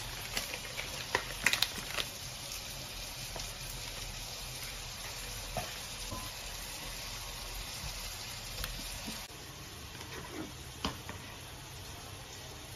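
Saucepan of edamame in broth simmering on a gas burner, a steady hiss, with several sharp clicks and knocks in the first two seconds. About nine seconds in the hiss drops away, and a couple of knocks follow.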